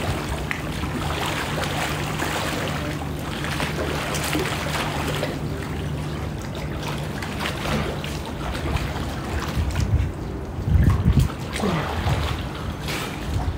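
Swimming-pool water sloshing and splashing as people wade and a swimmer moves through it, over a steady low hum. A few louder low bumps come near the end.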